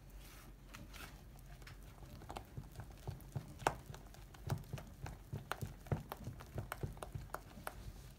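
A spoon beating thick cake batter by hand in a clear plastic tub: irregular knocks and clicks of the spoon against the tub, a few a second, busier from about two seconds in.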